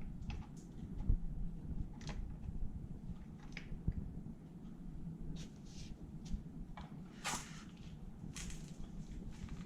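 Scattered light clicks and taps of Honda NSR50 engine parts and tools being handled by hand, with two short, louder noises about seven and eight and a half seconds in, over a steady low rumble.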